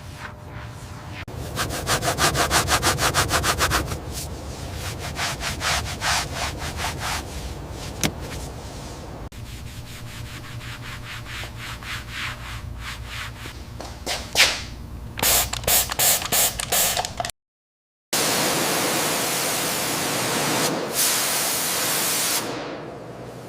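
Rapid rhythmic rubbing strokes, in several short clips cut together, then after a brief dropout a few seconds of steady hiss.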